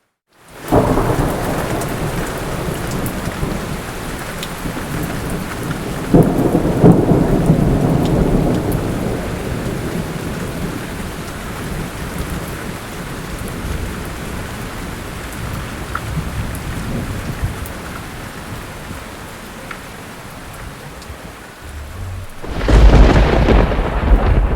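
Thunderstorm: steady heavy rain with rolling thunder, cutting in suddenly about half a second in. A loud thunder rumble comes about six seconds in, and the loudest, deepest thunderclap comes near the end.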